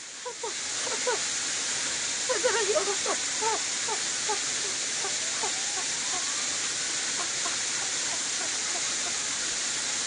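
Steady rushing hiss of a mountain stream's running water, starting suddenly just after the start. Faint short chirps are scattered through the first half.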